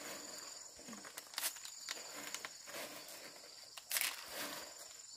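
Insects trilling steadily in two high pitches, with a few brief noises over them, the loudest about four seconds in.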